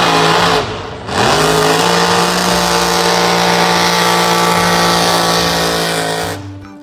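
Mud-bog truck engine revving hard at full throttle. It dips briefly just before a second in, climbs back up in pitch and holds high, steady revs, then drops away near the end.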